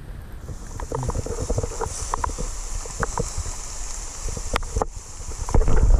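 Rustling and small irregular knocks from handling and movement in dry leaf litter, with wind buffeting the microphone. The wind grows loudest near the end, over a steady high hiss.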